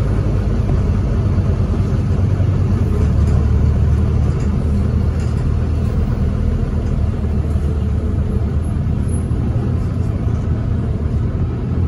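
City bus engine and running gear, a steady low rumble heard from inside the passenger saloon as the bus drives, with a few faint light rattles.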